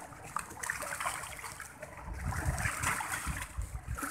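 Rough sea water surging and splashing against a rocky shoreline in heavy rain, a continuous rushing wash with irregular low rumbles.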